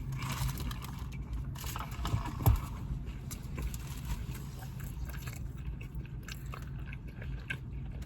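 Close-miked chewing and biting of fast food, with small crunches and wet mouth clicks. One louder knock comes about two and a half seconds in.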